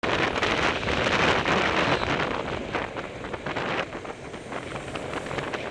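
Wind buffeting the microphone of an action camera on a moving bicycle, mixed with road and traffic noise; louder over the first two seconds as a car passes close by, then easing.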